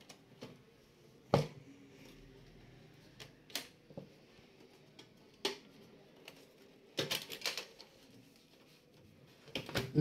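Scattered sharp plastic and metal clicks and clacks from the inside of an HP rp5800 desktop case as it is taken apart by hand: the black plastic air duct and the drive cage being unlatched and lifted. There are single clicks every second or two, then a quick cluster of clacks a little after the middle and more near the end.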